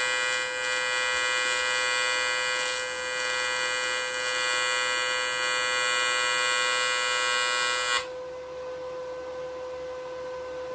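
AC TIG welding arc on aluminium buzzing steadily, then cutting off suddenly about eight seconds in as the arc is broken at the end of a bead, leaving the welder's quieter steady hum.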